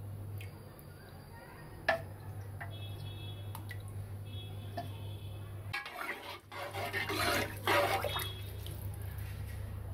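Water splashing in a cooking pot as rice is tipped in and churns, loudest a little past the middle, under a steady low hum. A few light clicks come earlier, in the first half.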